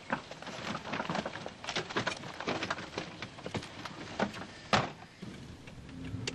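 Irregular clattering of clicks and knocks, several a second, with one sharper, louder knock near the end.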